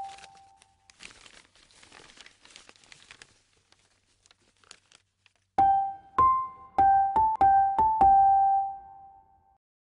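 A short piano phrase of a few notes dies away, paper rustles for about two seconds, and then the same little piano phrase of about six notes plays again.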